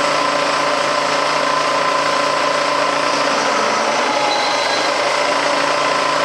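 Metal-cutting machine tool running steadily on aluminium stock, a loud whine of several steady tones that sags slightly in pitch near the end.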